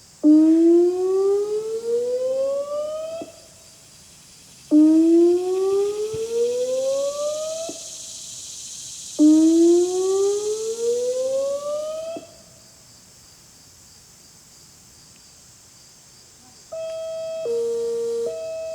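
Homemade electronic siren sounding its whoop tone: three rising sweeps of about three seconds each, separated by short gaps, with a few seconds' pause after the third. Near the end it switches to hi-lo, alternating between a higher and a lower pitch.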